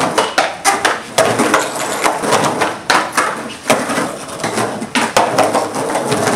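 Skateboard rolling over rough, broken concrete, the wheels rumbling, with repeated clacks and knocks from the board.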